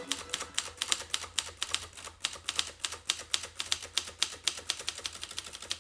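Rapid, sharp clicking like typewriter keys, about six clicks a second. A held musical note dies away at the very start.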